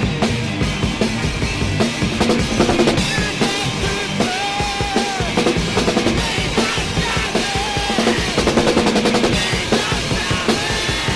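Rock band playing a song, led by a full drum kit with steady bass drum and snare hits under pitched instrumental lines.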